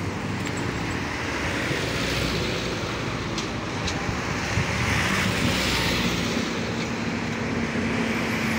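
Road traffic at a junction: cars and a truck running past close by, with wind on the microphone. A steady low engine hum joins about six and a half seconds in.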